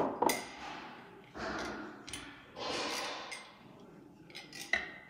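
Kitchen handling at a countertop blender: two short breathy hisses, then a few light plastic clicks near the end as the blender jar's lid is handled.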